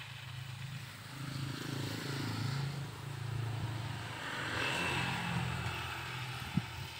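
Engine running, its low hum growing louder about a second in and holding, with a single sharp click near the end.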